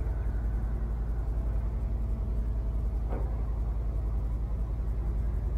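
Wind buffeting the camera's microphone: a steady low rumble with no change in level, and one faint brief sound about three seconds in.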